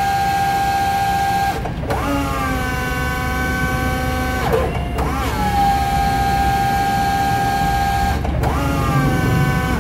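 Hyster E30HSD electric forklift's hydraulic pump motor whining in repeated runs of about three seconds, each starting with a quick rise in pitch, as the mast is tilted forward and back. The runs alternate between a higher and a lower steady pitch, with short breaks between them.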